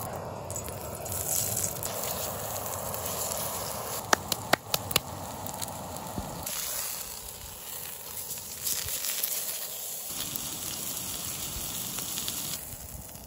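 Steak searing in hot oil in a frying pan on a camp stove: a steady sizzle, with a few sharp clicks about four to five seconds in.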